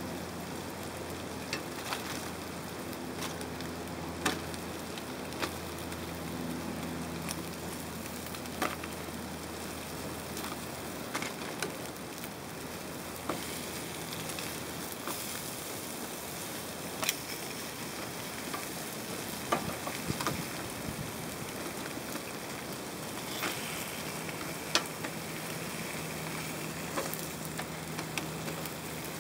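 Beef sizzling in a foil-lined grill pan, a steady hiss, broken every second or two by sharp clicks of metal tongs against the pan and grate. A low hum is heard during the first several seconds and again near the end.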